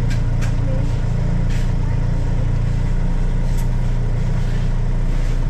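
Auto-rickshaw engine idling steadily while the vehicle stands still, with a few short clicks over it.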